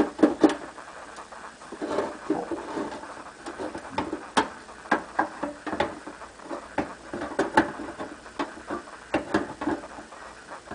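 Zojirushi Home Bakery Mini bread maker's metal baking pan and its wire handle giving a run of light, irregular clicks and knocks as the pan is worked into place in the machine.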